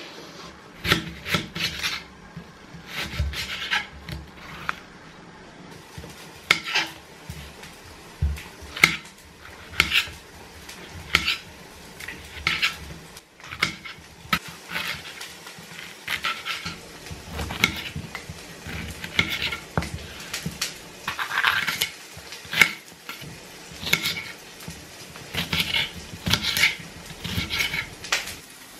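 Kitchen knife slicing vegetables on a marble chopping board: a sharp knock of the blade meeting the stone every second or so, unevenly spaced.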